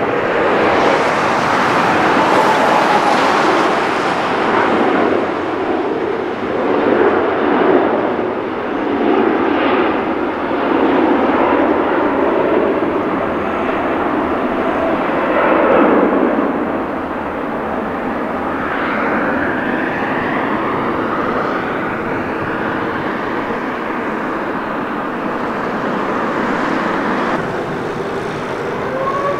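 Jet engines of a large airliner, a loud, steady rushing noise that swells and ebbs. In the last second a whine rises in pitch as the engines spool up.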